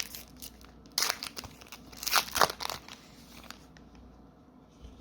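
Foil Magic: The Gathering booster pack wrapper being crinkled and torn open in two bursts of crackling, about a second in and again, louder, around two seconds in.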